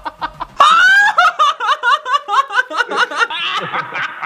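Loud, high-pitched human laughter: a rising shriek about half a second in, then a rapid run of short laughs.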